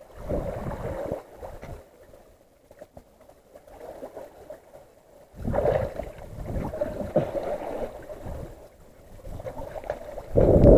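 Wind buffets the microphone in irregular gusts over water sloshing against the rocks of a breakwater. The strongest gust hits near the end.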